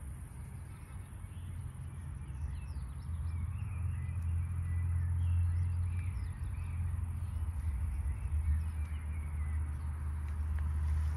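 Birds calling faintly, a scatter of short chirps and calls, over a steady low rumble.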